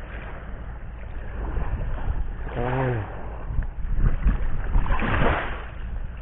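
Wind buffeting the microphone over waves washing on the shore, with a louder surge of surf about five seconds in. A short voiced sound from a person a little before halfway.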